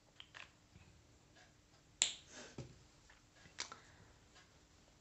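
Several light clicks or taps. The sharpest comes about two seconds in and another about three and a half seconds in, over a faint steady hum.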